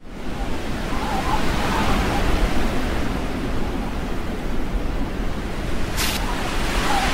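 Steady rushing wind sound effect for a snowy night scene, fading in at the start and holding even, with a brief sharp hiss about six seconds in.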